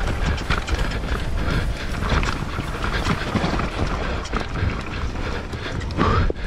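YT Jeffsy 27.5 mountain bike ridden fast down a rough enduro trail: a steady, irregular clatter of tyres over roots and rocks and the bike's chain and frame rattling, over a low rumble of wind on the action camera's microphone.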